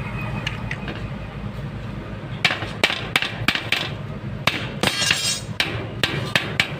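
Hammer striking metal: a run of sharp, irregular knocks beginning about two and a half seconds in, over a steady low hum.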